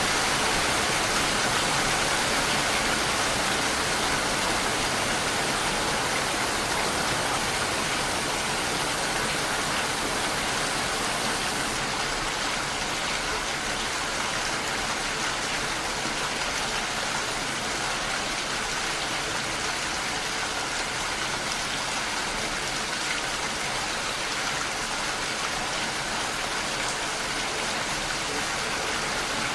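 Steady heavy rainfall: a dense, even hiss of rain with no distinct drops or thunder.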